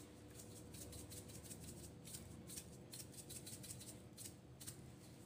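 Faint, irregular light rattling and ticking as ground black pepper is shaken from a small shaker over raw chicken in a stainless steel bowl, over a low steady hum.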